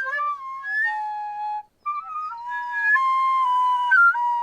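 Recorder played badly by a beginner: shrill, squeaky held notes that wobble and jump in pitch, sometimes with two pitches sounding at once, without forming a tune. The playing breaks off briefly about two seconds in, then carries on.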